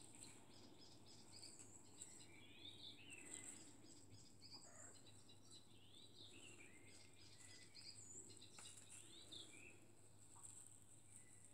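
Near silence: faint high chirps and short twittering glides come and go over a steady thin high-pitched whine and a low hum.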